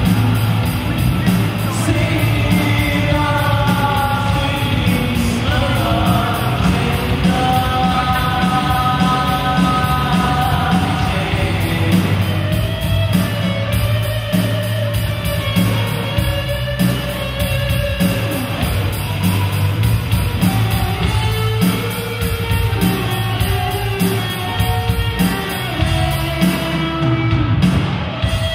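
Live rock band playing a song: a man singing over electric guitars, bass, keyboard and an electronic drum kit, amplified through a PA. The playing thins out near the end.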